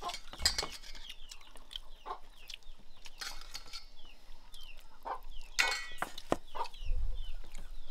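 Chickens clucking, with many short, high, falling chirps repeating throughout, along with a few sharp clinks of a spoon against a steel bowl.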